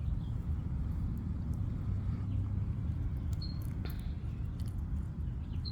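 Rabbits chewing carrots: a few faint crunching clicks over a steady low rumble, with one short high bird chirp about three and a half seconds in.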